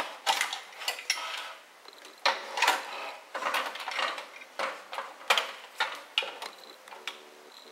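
Hands working inside an opened CD boombox, handling its plastic chassis and circuit board and unplugging cable connectors: a run of irregular clicks, taps and light rattles.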